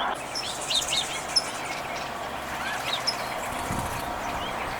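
Wild birds chirping, with many short, high calls scattered over a steady outdoor background hiss.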